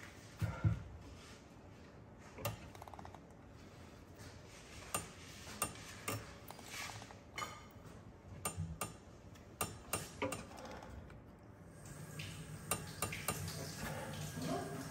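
Scattered sharp metallic clicks from a digital torque-angle ratchet wrench being worked on a flywheel bolt while the bolt is angle-tightened, irregular and sometimes two or three close together.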